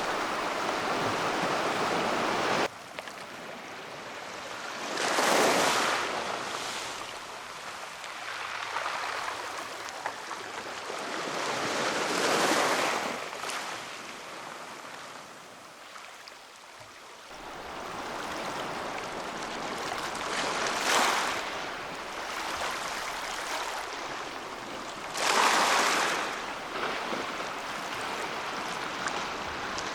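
Black Sea surf: waves washing in over a steady wash of water, with four louder swells as waves break. The background changes abruptly about three seconds in and again past the middle.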